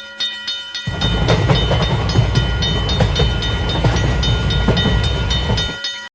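Railroad crossing warning bell ringing in rapid, evenly spaced strikes while a train rumbles past. The rumble comes in about a second in, and both stop abruptly just before the end.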